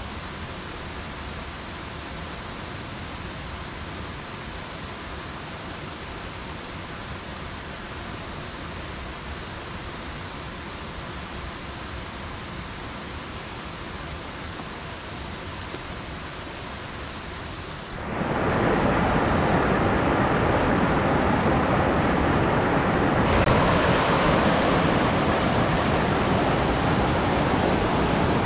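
Steady, soft outdoor ambience, an even hiss. About eighteen seconds in it cuts to a much louder, steady rushing noise that holds to the end.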